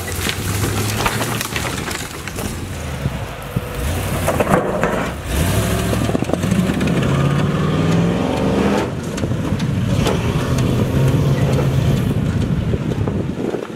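Armored four-wheel-drive Suburban driving fast over dirt on shot-out run-flat tires: the engine revs up and down, climbing in pitch about halfway through and then holding steady, over the rumble of tires and loose dirt.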